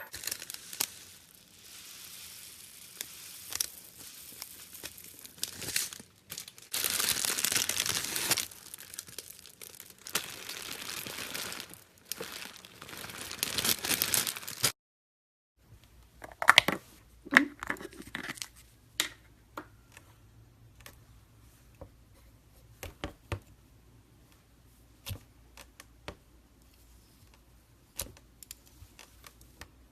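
Slime being handled, with dense crackling and crunching for about fifteen seconds. After an abrupt cut come scattered small clicks and pops as it is pressed and stretched.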